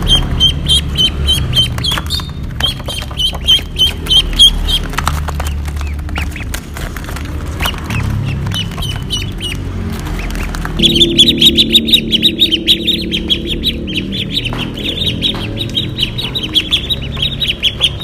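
A group of ducklings peeping, a rapid string of short, high peeps. About eleven seconds in, the peeping becomes louder and denser, over a low rumble.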